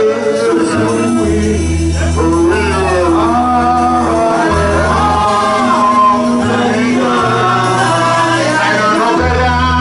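Gospel worship music: a man singing into a microphone over an electric keyboard and bass guitar, the bass holding long notes that change every second or two.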